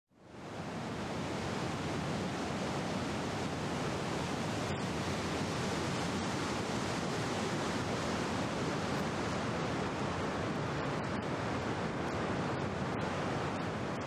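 Water pouring over a dam spillway: a steady rush of falling, churning white water that fades in at the start.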